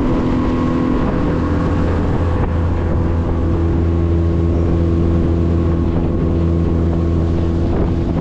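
Boat motor running steadily with a strong low hum, its pitch shifting slightly about a second in.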